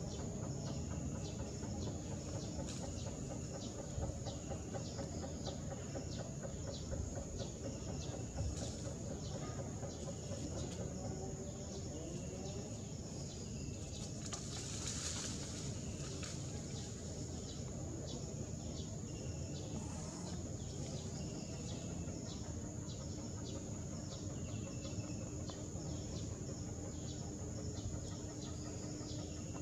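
Outdoor ambience: a short high call repeats about once a second over a steady high whine and a low background rumble. A brief burst of hiss comes about halfway through.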